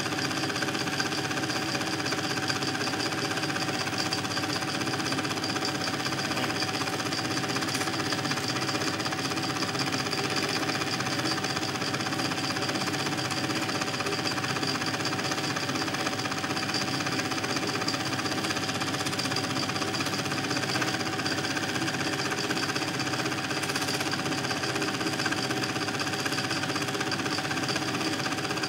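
Home-movie film projector running: a steady, rapid mechanical clatter from the film transport, with a constant whine underneath.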